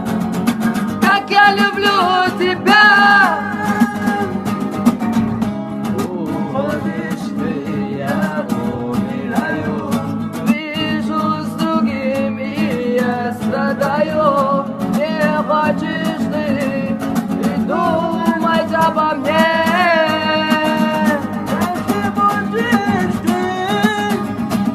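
Music: a song's instrumental passage with guitar and a melodic lead line over a steady bass accompaniment.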